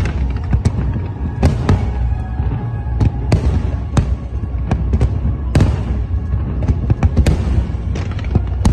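Large aerial fireworks display: shells bursting in quick, irregular succession, sharp bangs about once or twice a second over a continuous low rumble of further explosions.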